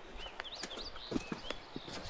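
Irregular knocks and clicks of footsteps on a rocky trail, about six in two seconds, with small birds chirping.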